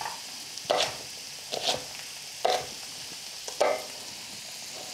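Chef's knife chopping green beans on a wooden cutting board: four sharp chops about a second apart, over a steady faint sizzle of vegetables frying in oil in a pan.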